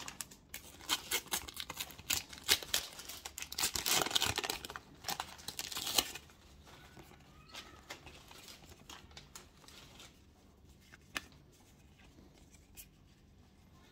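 A sticker packet being torn open and crinkled, with the stickers shuffled by hand. The crinkling is dense for about the first six seconds, then thins to a few faint clicks and rustles.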